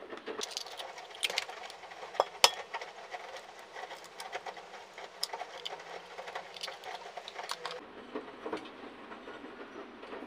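Eggs being cracked and broken open over a glass mixing bowl: a run of small clicks and taps of eggshell, with one sharp crack about two and a half seconds in.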